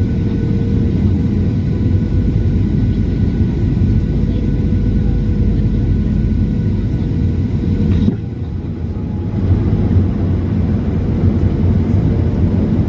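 Steady cabin noise inside a Boeing 737-900 airliner in flight: low engine and airflow rumble with a faint steady tone above it. The rumble drops a little for about two seconds around eight seconds in, then returns.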